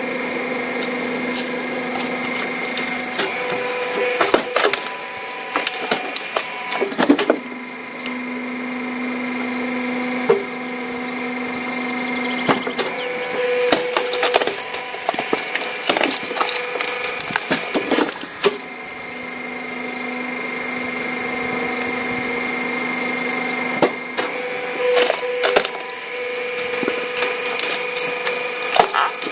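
Firewood processing machine running with a steady hum, with three spells of sharp cracking and knocking as wood is split and pieces fall.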